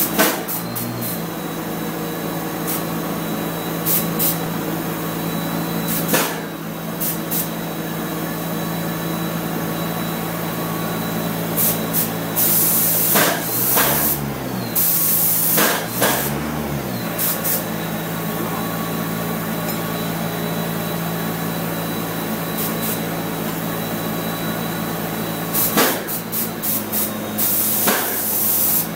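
Hose-fed paint spray gun hissing in short bursts as its trigger is pulled, loudest about halfway through and again near the end, over a steady machine hum.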